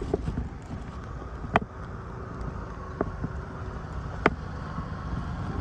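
Outdoor parking-lot ambience: a steady low wind rumble on the microphone, a faint steady hum through the middle, and three sharp clicks about a second and a half apart.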